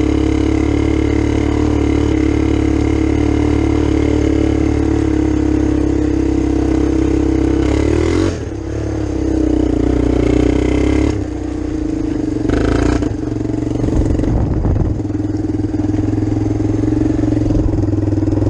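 Kawasaki Bayou ATV engine running under way, a single steady engine note, dipping briefly about eight seconds in and again about eleven seconds in.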